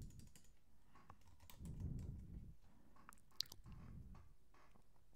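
Computer keyboard being typed on: a scattering of light key clicks, with one sharper click a little past halfway. Two soft low rumbles come in between.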